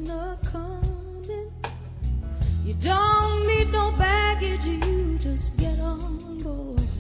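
Soul song playing: a singer holds long, wavering notes over bass and drum beats.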